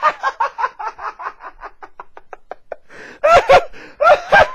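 A man laughing hard in a long fit of quick ha-ha pulses, about six a second. It dies down past the middle, then comes back louder for the last second and a half.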